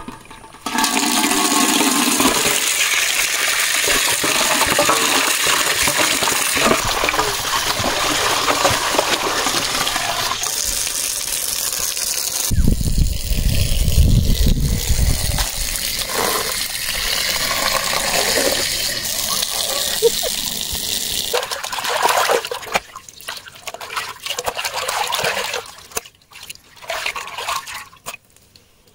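Water gushing from a pipe into an empty aluminium cooking pot, a steady pour that runs for about ten seconds before changing. After that come a few seconds of low rumble and then broken, intermittent splashing and handling noises.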